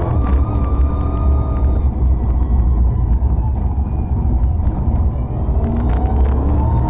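Competition car's engine heard from inside the cockpit, pulling hard at high revs, easing off in the middle, then revving up again near the end. Occasional sharp knocks and rattles over the engine.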